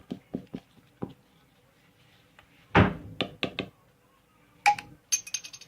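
Sharp knocks and clicks: scattered light clicks, a loud knock about three seconds in followed by a few quick clicks, and another knock near the end that runs into a fast rattle of high ticks.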